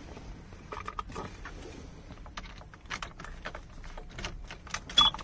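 Keys and keyring clicking and jangling as a key is worked in the truck's ignition lock, in many small light clicks. About five seconds in comes a sharper click with a short high beep. The engine is not running.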